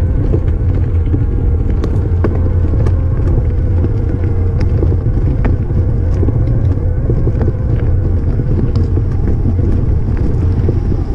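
Mountain bike rolling fast down a gravel track, heard from a bike-mounted camera: a loud, steady low rumble of wind on the microphone and tyres on loose stones, with scattered clicks and rattles from stones and the bike.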